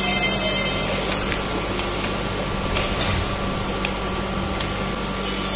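Coffee capsule filling machine running: a steady mechanical hum from its conveyor drive with a few light clicks, and a high hiss that fades out about a second in.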